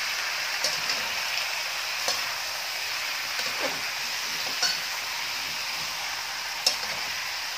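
Raw chicken pieces sizzling in hot oil in an aluminium wok, stirred and turned with a metal spatula that knocks against the pan a few times. The chicken is being seared in sautéed garlic, onion and ginger.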